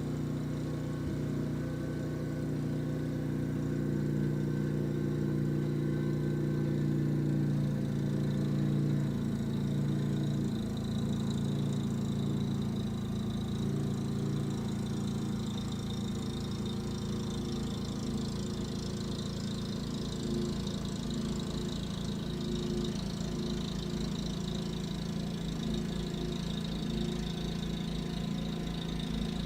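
Snow blower's small engine running steadily, its pitch shifting slightly about a third of the way through.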